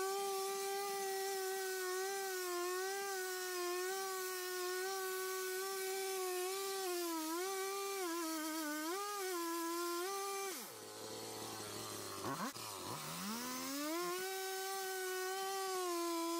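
Stihl two-stroke chainsaw running at high revs while carving into a log, its pitch sagging now and then as the chain loads up in the cut. About two-thirds of the way through the throttle is let off and the revs drop to a low idle, then it revs back up and keeps cutting.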